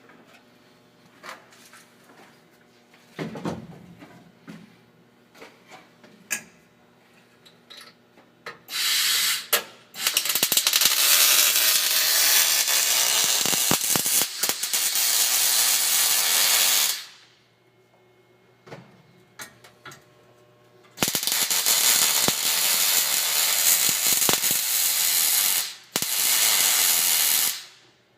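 Welding on sheet steel: bursts of steady crackling from the welding arc. There is a short burst about nine seconds in, a long one of about seven seconds, then two more near the end. Scattered clicks and taps fall in between. This is the sound of the new cab mounts being welded in.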